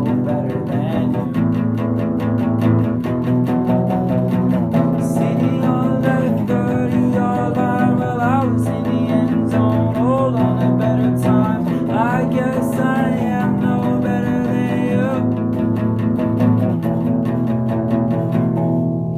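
Instrumental section of an indie rock song: guitars and bass guitar playing together, with a lead line of bending notes over it.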